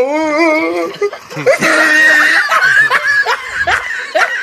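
A man's voice whooping and laughing during a tyre zip line ride: a long wavering shout, a higher held yell about two seconds in, then a run of short laughs that each rise in pitch.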